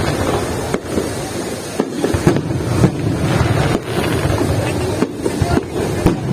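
Fireworks display going off: a continuous low rumble of bursts with many sharp bangs and crackles, several a second.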